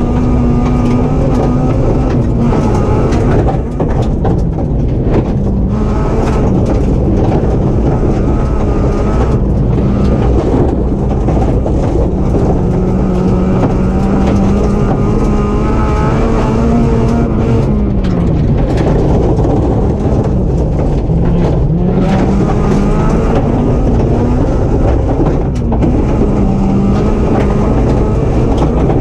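Rally car's engine, heard from inside the car, driven hard along a gravel track. Its pitch climbs and drops sharply several times as gears change, over a constant rumble of tyres on loose stones.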